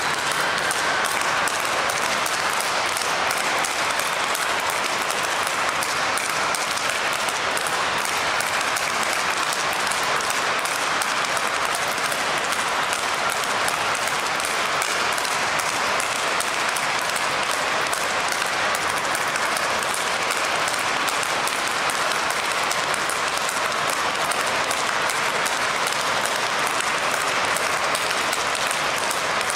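A continuous dense patter of sharp claps, like applause, holding at a steady level without let-up.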